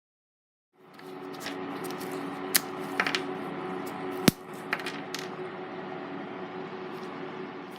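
Small clicks and knocks of hands handling a pencil sharpener, over a steady hum, with one sharp knock a little after four seconds.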